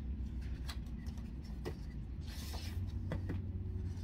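Pages of a picture book being handled and turned, with a few light taps and one brief papery rustle about halfway through, over a steady low hum.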